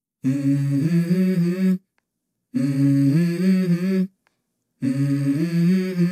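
Opening of a song in the soundtrack: a low, wordless hummed phrase, heard three times with dead silence between. Each phrase lasts about a second and a half and steps up in pitch.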